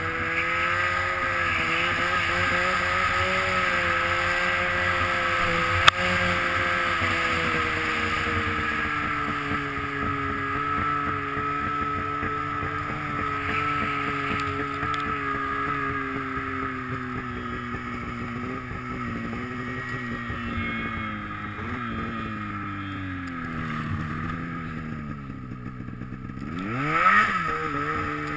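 Polaris snowmobile engine running under way through powder, its pitch sinking slowly lower. Near the end a quick rev rises and falls, the loudest moment, and there is one sharp click about six seconds in.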